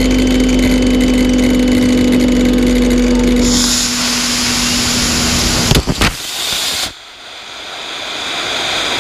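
Circular saw motor running with a steady whine, heard from a camera mounted on the saw. About three and a half seconds in, its four model rocket motors (two F and two D) ignite with a loud rushing hiss. Around six seconds a few sharp knocks come as the saw is thrown, the motor's whine stops, and the rocket hiss carries on, dropping and then swelling again.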